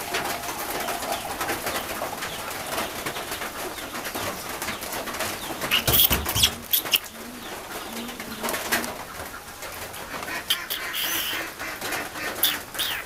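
Birds cooing in the background, with a few sharp clicks and knocks, the loudest about six seconds in.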